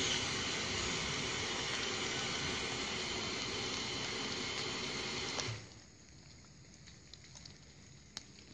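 Steady rushing noise as an electric regional train approaches on the rails in the rain. About five and a half seconds in the noise cuts off abruptly, leaving a faint hush with a single click near the end.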